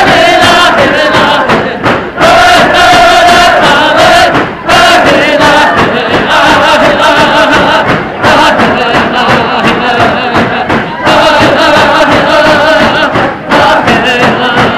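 Tlicho (Dogrib) drum-dance song: men's voices chanting in unison over frame hand drums beaten in a steady rhythm, with the dancing crowd behind. The singing breaks off briefly every two or three seconds between phrases.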